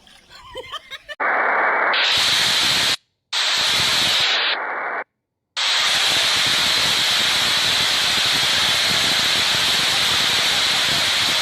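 Steady rushing noise of a waterfall's falling water, with no distinct tones. It starts abruptly about a second in and breaks off twice for a moment.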